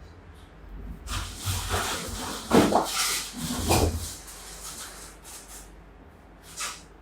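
Electric-bike packaging being cut open and pulled apart with a cutter: a few seconds of scraping and rustling, with two louder strokes near the middle, then a few light clicks.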